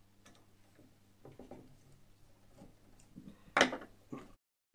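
Faint clicks and handling noises of a screwdriver working the screws of a CPU cooler's metal mounting bracket, then about three and a half seconds in a single sharp clatter as the screwdriver is put down on the wooden table, followed by a smaller knock.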